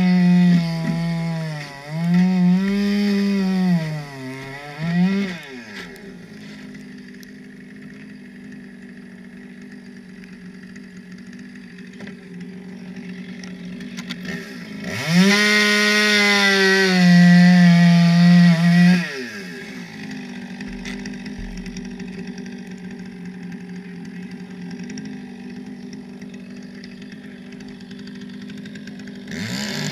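Two-stroke chainsaw cutting into lake ice: bursts at full throttle with the pitch sagging under load through the first five seconds and again for about four seconds midway, idling quietly in between, then revving up once more at the very end.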